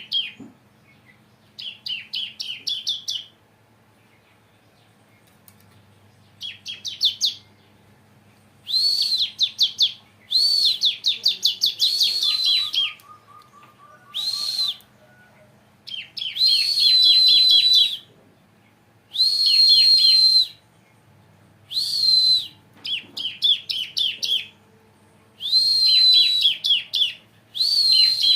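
A bar-winged prinia (ciblek) singing: short, loud bursts of rapid, repeated high chirping notes, phrase after phrase with brief pauses between them. Its keeper judges the bird not yet in full singing form.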